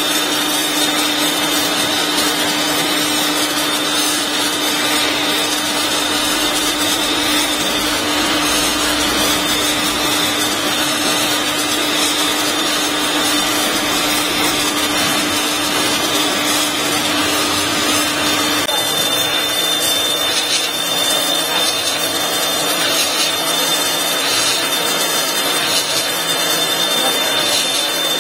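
ABW VGS 70 high-pressure washer running, its water jet hissing steadily onto pebble paving. A low hum under the spray drops out about two-thirds of the way through and the spray sound changes.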